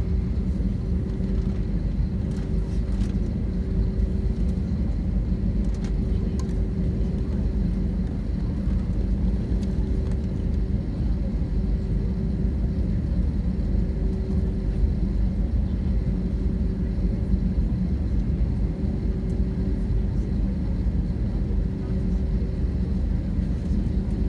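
Steady low rumble of an airliner's engines, with a faint constant hum running through it.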